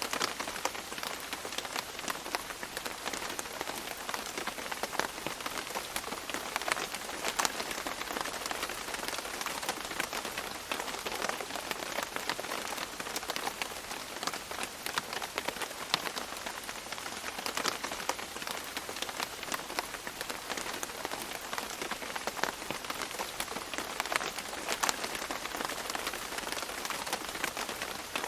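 Steady tropical rain falling on leaves, a dense hiss of rain with many distinct drops spattering on the foliage.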